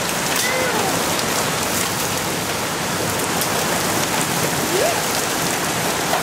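Heavy thunderstorm downpour: a dense, steady hiss of rain with scattered sharp ticks of drops striking nearby surfaces.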